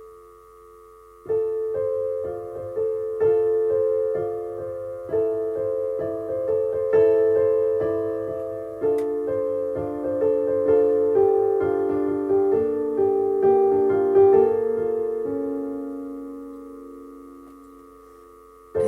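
Solo piano playing a slow chordal passage, notes struck and left to ring. It starts about a second in and fades away on a held chord near the end.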